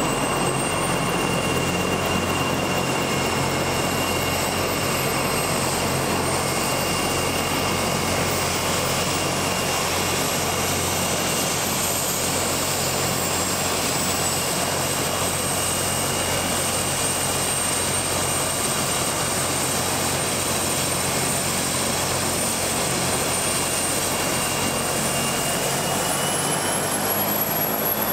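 AgustaWestland AW109 twin-turbine helicopter on the ground during start-up: a high turbine whine over a steady rush of rotor and engine noise. The whine rises in pitch over the first ten seconds or so, holds steady, then climbs again near the end as the engines spool up.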